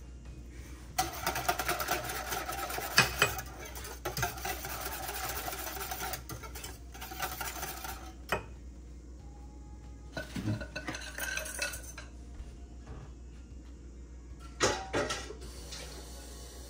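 Wire whisk stirring hot milk and eggs in a stainless steel saucepan: metal scraping and clinking against the pan, busiest in the first few seconds, with several sharper clinks along the way, one pair near the end.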